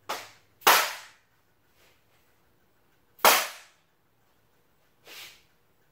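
Four sharp knocks of a rubber mallet striking a radiator part to seat it flush. The first two come close together, the third follows a few seconds later and is just as loud, and a fainter fourth comes near the end.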